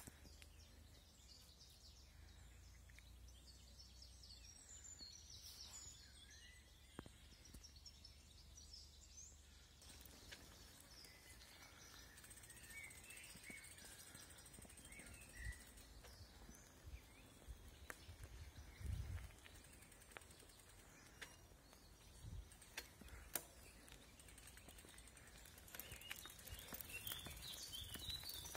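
Near silence: a quiet woodland, with faint bird chirps now and then and soft footsteps on a dirt path in the second half.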